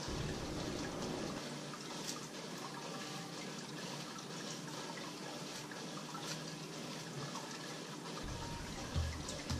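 Hands kneading bread dough on a countertop: soft squishing and patting over a steady hiss, with a few dull thumps near the end.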